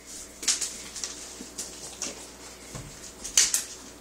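A few separate sharp clicks and taps, with a louder pair near the end.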